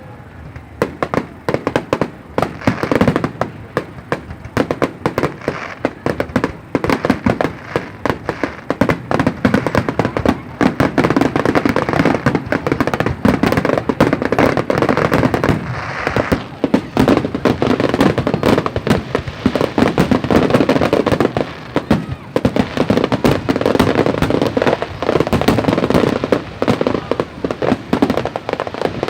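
Fireworks going off in a dense, continuous barrage of bangs and crackling, growing thicker partway through.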